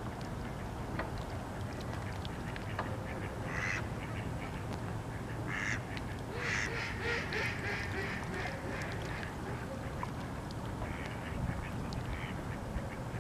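Mallard ducks giving a few short, raspy quacks, several in a cluster near the middle, over a steady low background rumble.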